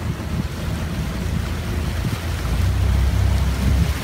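Motorboat engine running steadily under way, with wind and water noise; the engine hum grows louder about two and a half seconds in.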